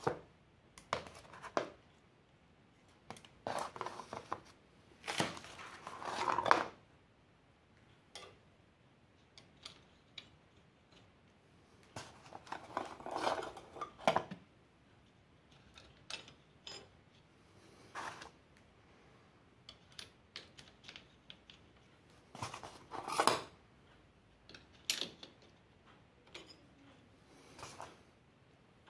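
Yamaha YBR 125 clutch plates, fibre friction plates and toothed steel plates, clinking and scraping against each other as they are picked up, sorted and set down on cardboard. Irregular light clicks with a few longer clattering bursts.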